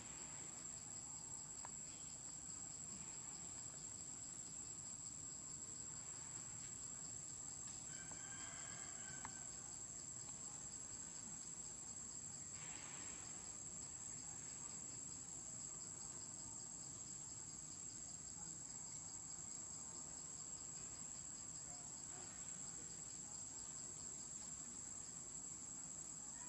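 A steady, high-pitched insect drone, with a faint fast pulsing beneath the tone.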